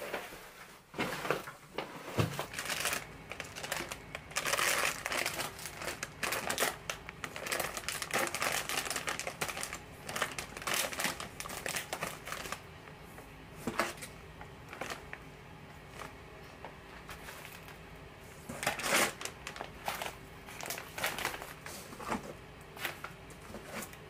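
Irregular crinkling and rustling with scattered clicks and knocks, over a steady low hum that starts about two seconds in.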